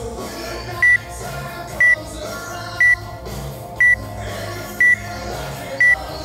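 Workout countdown timer beeping once a second, six short high-pitched beeps counting down to the start of a workout, over background music.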